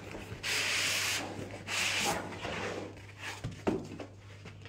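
Cardboard and foam packing scraping against each other as a boxed device is slid out of its carton: two long rubbing scrapes, then lighter scuffs and one sharp knock about three-quarters of the way through.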